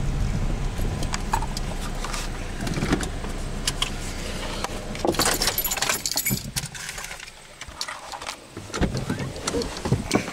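Low rumble inside a car, then keys jangling with sharp metallic clicks about five to seven seconds in as the rumble dies away, followed by scattered handling knocks and rustles.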